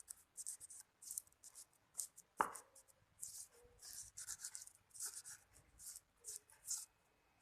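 Burnt candlenut rubbed hard against a spoon in short, quick scraping strokes, pressing the oil out of the nut. One sharp knock about two and a half seconds in.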